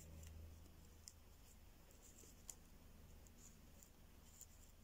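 Near silence: quiet room tone with a faint low hum, and faint scattered ticks from hands handling yarn ends and a steel crochet hook.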